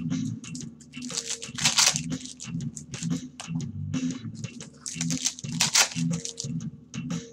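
Foil trading-card pack wrappers tearing and crinkling as packs are ripped open, in a string of sharp rustles with the loudest about one and a half seconds and five and a half seconds in. Background music plays underneath.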